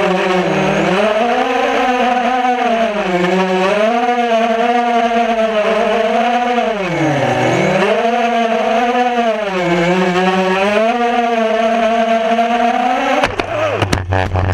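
Racing quadcopter's brushless motors and propellers whining, heard from its onboard GoPro, the pitch rising and falling with the throttle and dipping deeply about seven seconds in. Near the end it crashes into brush: a quick run of sharp knocks and clatter as it tumbles.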